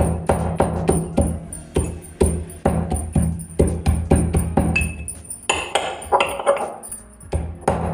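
Almonds and cashews being crushed coarse with a pestle in a small metal mortar: quick, repeated metallic knocks with a short clink, about three or four a second, easing briefly near the end.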